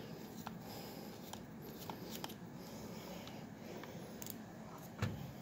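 Faint handling noises as test leads are lifted off a pressure transmitter's terminal block: a few light, scattered clicks and rustles, with a soft thump about five seconds in.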